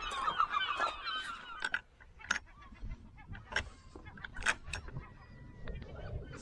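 A flock of birds calling, a dense chatter that fades out over the first second and a half. Then a few sharp metallic clicks as a carabiner on a kayak's rope is handled against an eye bolt.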